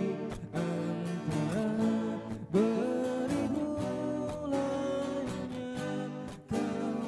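Two acoustic guitars playing a song together, strummed chords.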